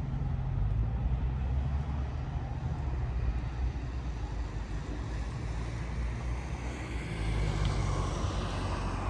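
Low, steady engine rumble from distant vehicles, growing louder for a couple of seconds near the end.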